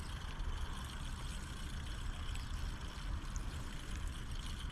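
Steady wash of sea water lapping and trickling, with a low rumble underneath.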